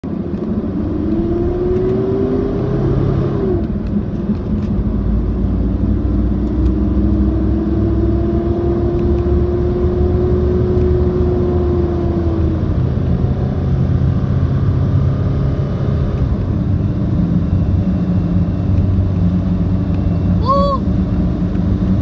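Mitsubishi Montero's 4M41 3.2-litre turbodiesel four-cylinder pulling the vehicle along the road, heard from the cabin. Its pitch rises slowly and drops back sharply twice as it shifts up, then it holds steady at cruise. A short high chirp sounds near the end.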